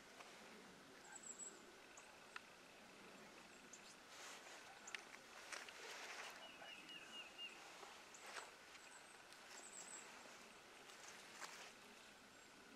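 Near-silent outdoor ambience: scattered faint rustles and clicks, with a few thin, high chirps and short trills.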